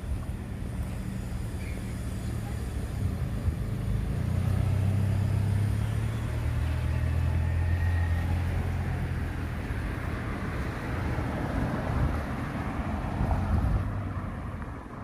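Street traffic: a car engine's low hum grows louder about four seconds in and holds for several seconds, then the rushing tyre noise of passing traffic swells and fades near the end.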